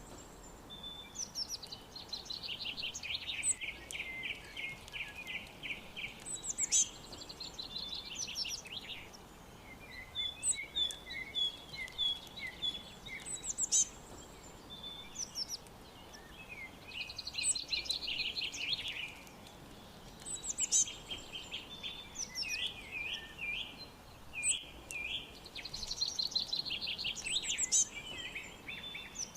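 Songbirds singing and chirping: a rapid trilled phrase of about two seconds recurs every several seconds, with shorter, higher chirps scattered between, over a faint steady background hiss.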